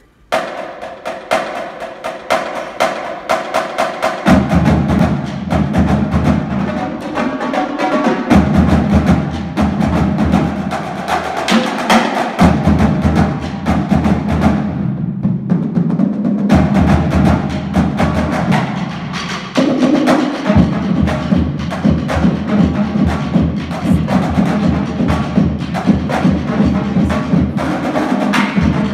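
Marching drumline of snare drums, tenor drums and bass drums playing a fast cadence of rapid stick strikes. The bass drums come in about four seconds in and drop out for short breaks every few seconds, and the snares fall away briefly around the middle.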